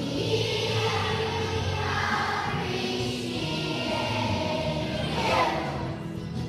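Large children's choir singing together.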